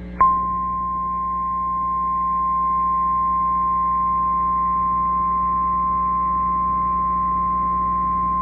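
NOAA Weather Radio's 1050 Hz warning alarm tone: a single steady pure tone that comes in about a quarter second in and holds, announcing a warning broadcast. Faint receiver hum and static lie underneath.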